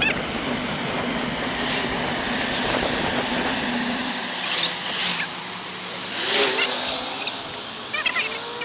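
Wind and road noise picked up by a bicycle's handlebar-mounted action camera, played at four times speed, with passing traffic heard as short whooshes several times and a few wavering tones in the second half.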